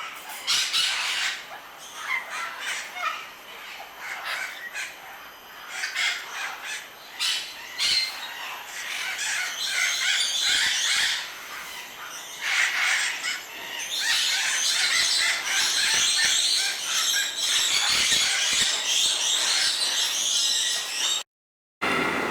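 A group of birds squawking and screeching, with many harsh calls overlapping. The calls grow into a dense, continuous chorus in the second half and cut off abruptly near the end.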